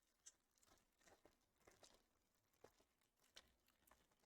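Near silence with faint, scattered ticks and rustles of trading cards being handled and flipped through.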